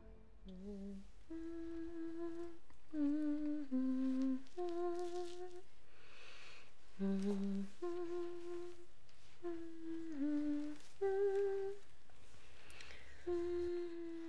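A person humming a slow melody: about a dozen held notes, one after another with short breaks between them.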